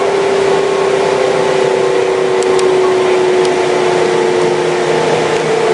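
Kintetsu 1259 series electric train running, its Hitachi GTO-VVVF inverter giving a steady whine that drifts slowly lower, over the rumble of the train running on the track. A lower tone joins near the end.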